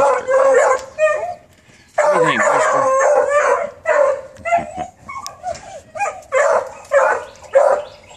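Beagle puppies barking, with one longer drawn-out call about two seconds in, then short calls about two a second.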